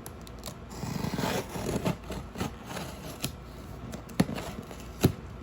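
A knife cutting through the packing tape and cardboard of a shipping box, a rasping scrape, followed by a few sharp knocks as the box is handled.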